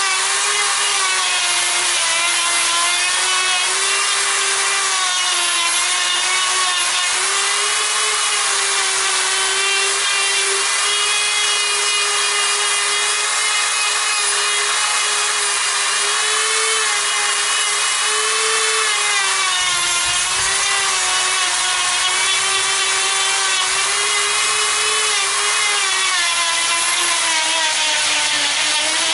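Handheld electric rotary grinder with a carving bit running steadily and grinding into a Premna microphylla trunk: a high motor whine over the rasp of wood being cut away. The whine wavers and dips in pitch twice, about two-thirds of the way through and near the end, as the bit bites harder.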